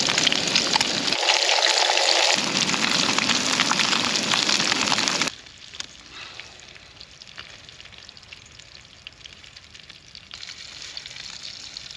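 Small horse mackerel frying in hot oil in a steel pan on a camping gas stove: a loud, steady sizzle. It cuts off suddenly about five seconds in, leaving only a faint background.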